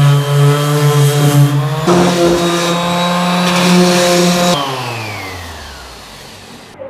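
Bosch GEX 125-1 AE random orbit sander running while it sands MDF edges, a steady motor hum whose pitch steps up about two seconds in. About four and a half seconds in it is switched off and winds down, the pitch falling away as it slows.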